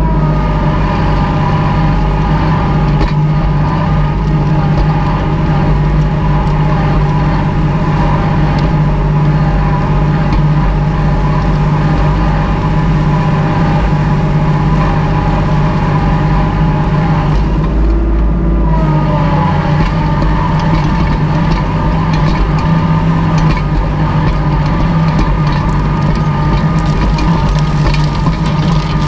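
Kubota L2501 tractor's three-cylinder diesel engine running steadily under load while pulling a disc harrow through overgrown ground, with a short change in the sound about 18 seconds in.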